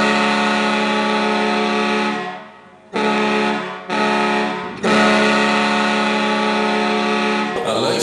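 Ice hockey goal horn of the Cobourg Community Centre blowing a pattern: a long blast ending about two seconds in, then two short blasts of about a second each, then a long blast of about three seconds. The goal song music starts right after, near the end.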